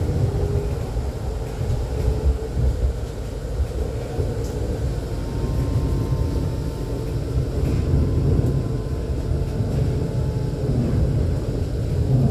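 E2-class tram under way, heard from inside the passenger cabin: a steady low rumble of wheels on rail and running gear, with a faint thin whine through the middle.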